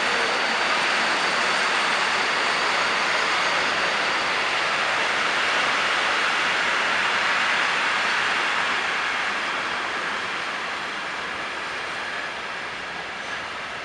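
A train rolling past: an SM42 diesel locomotive hauling two electric multiple units, heard as a steady rushing noise that fades gradually in the second half.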